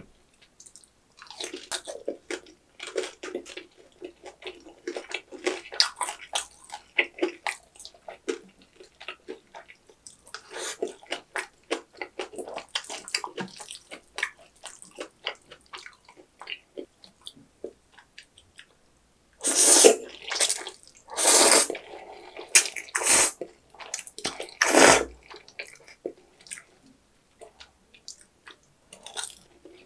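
Close-up eating sounds of jjajang ramen: wet, sticky chewing of sauce-coated noodles for the first half, then four loud noodle slurps about a second and a half apart, two-thirds of the way in.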